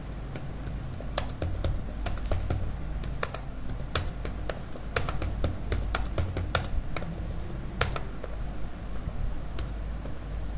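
Typing on a computer keyboard: irregular key clicks in quick runs, starting about a second in and thinning out near the end, over a low steady hum.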